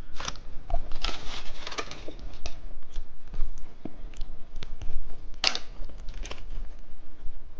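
Plastic candy packaging crinkling and tearing as it is handled and opened, in irregular rustles and clicks, with a louder crackle about five and a half seconds in.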